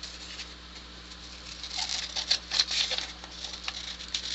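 Scissors cutting a strip from a glossy magazine page: a quick run of crisp snips and paper rustles starting about two seconds in.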